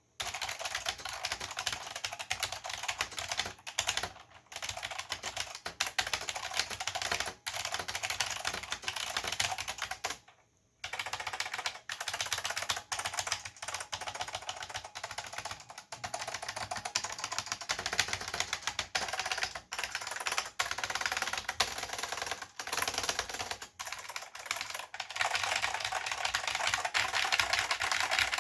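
Continuous fast typing on a Chicony KB-5301 keyboard with Chicony buckling spring switches: a steady stream of key clicks with hollow bottom-out clacks. There are a few brief pauses, the longest about ten seconds in, and the typing gets a little louder near the end.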